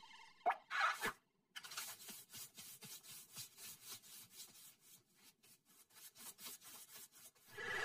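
Cartoon sound effect of a scrubbing brush scouring a floor in quick, even strokes, about three a second, after a few short sharp sounds near the start.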